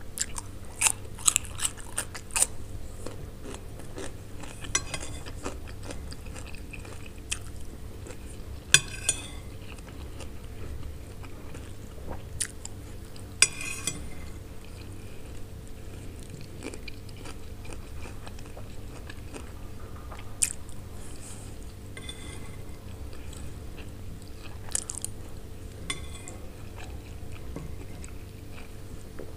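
Close-miked eating: crisp bites of fresh cucumber slices and chewing of fried pasta. A quick run of sharp crunches comes in the first couple of seconds, then single crunches every few seconds, over a steady low hum.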